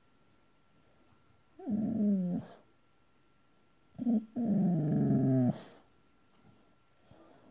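Boxer dog vocalizing in its sleep while dreaming: a call of about a second falling in pitch, then a short note and a longer drawn-out call of over a second.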